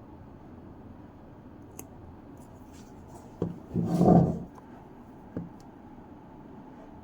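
Small objects being handled by hand: a few light clicks and a short scraping rub about four seconds in.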